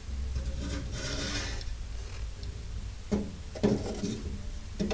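Metal fuel sending unit being worked up out of a VW Bus fuel tank by hand, rubbing and scraping against the tank opening, with a few sharp knocks in the last two seconds as the float arm comes through.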